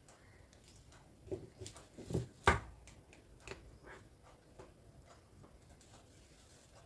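Soft rustling and small clicks of hand embroidery: net cloth being handled on an embroidery hoop while a needle and thread are pulled through. A sharp click about two and a half seconds in is the loudest sound.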